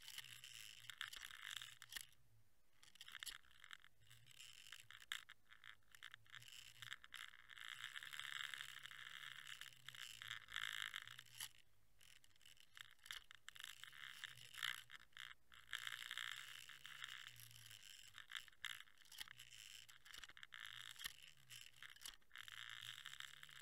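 Faint underwater sound picked up by an action camera in a housing on the fishing line: a hiss of water swelling and fading as the rig moves, with many small clicks and rattles and a low hum underneath.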